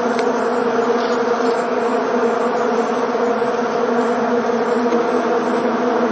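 Swarm of honey bees buzzing steadily as many fly around together, a dense hum of overlapping wingbeat tones.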